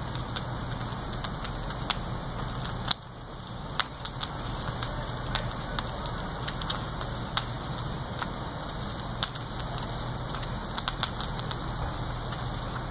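Burning house fire crackling, with irregular sharp pops over a steady rushing noise; one loud crack about three seconds in.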